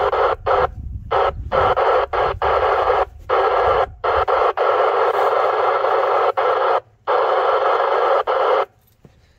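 FM static hissing from a Yaesu FT-2980 2-metre transceiver's speaker, cutting in and out several times in stretches of under a second to a few seconds as the squelch opens and closes, then stopping near the end.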